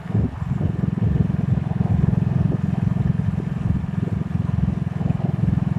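Motorcycle underway, its engine running with a low steady rumble.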